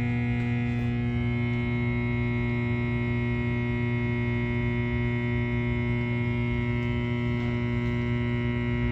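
Steady electrical buzz from an electrical unit in a utility closet: a low mains hum with many higher overtones, unchanging throughout.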